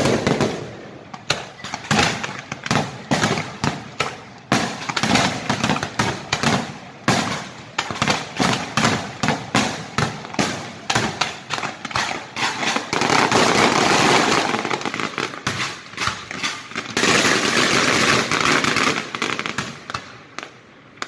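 Fireworks display: aerial shells bursting in quick succession, a rapid string of bangs. Twice in the second half the bangs thicken into several seconds of dense continuous crackling.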